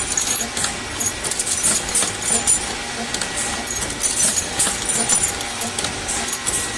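Steel tubes clinking and jangling against one another in a pile at a tube-forming press, with irregular light metallic clicks and ringing over the machine's steady running noise.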